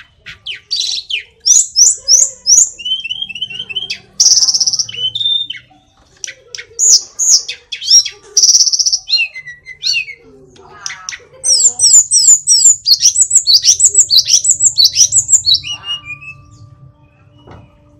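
Male hill blue flycatcher (sulingan / tledekan gunung) singing a loud, varied song of quick whistled and chattering phrases, with short pauses between them. In the second half it runs into a dense string of rapid down-slurred notes.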